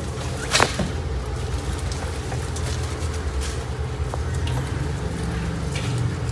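Steady low hum under scattered light rustling and clicking as hairless guinea pigs move through and feed on cut elephant grass on a wire cage floor. One sharp, short sound stands out about half a second in.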